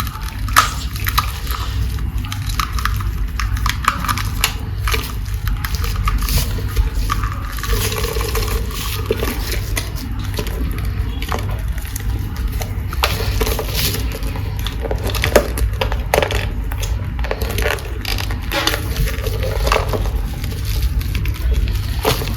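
Handling noise from unboxing: plastic packaging and toys crackling and clicking in many short bursts, over a steady low hum.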